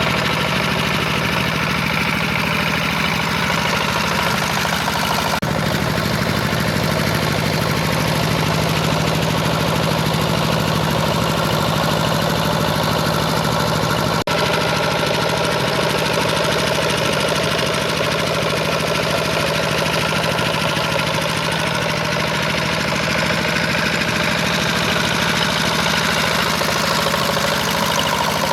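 A power tiller's engine running steadily while ploughing a paddy field. The sound changes abruptly twice, about five and fourteen seconds in.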